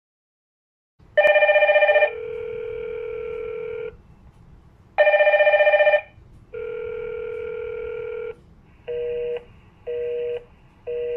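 Hikvision IP video intercom call ringing: a loud warbling ring tone about a second long, then a steadier, lower tone for about two seconds, the pair heard twice. It ends with three short beeps about a second apart as the call is ended.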